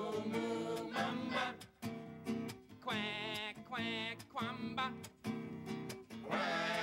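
Song on a nylon-string acoustic guitar, strummed steadily, with sung vocals; about three seconds in a high voice holds notes with a strong wavering wobble.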